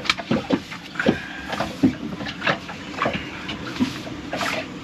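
Irregular clicks and knocks of manual bilge pump parts being handled and fitted together by hand, with a brief squeak about a second in.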